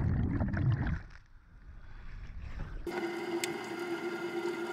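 Water rushing and bubbling as a diver plunges in. Then, about three seconds in, a steady underwater motor hum with a whine from divers' underwater scooters running.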